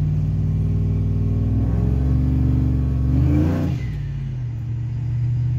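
Supercharged Ram pickup's TorqStorm-boosted Hemi V8 accelerating hard under boost, heard from inside the cab. The engine note climbs in pitch, then drops about four seconds in and settles to a lower, steady run.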